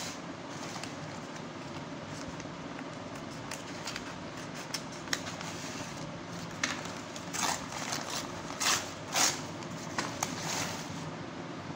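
Brown paper courier bag being cut open with scissors and handled: crinkling and rustling paper, with a run of louder crackles in the second half over a steady hiss.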